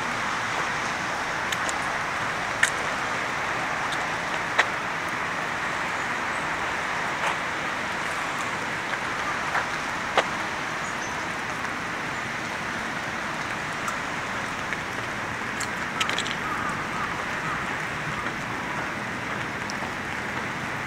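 Steady rain hiss, with scattered sharp ticks now and then, the loudest about ten seconds in.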